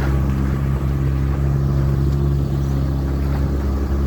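A motor running at a steady speed, its drone holding one even pitch.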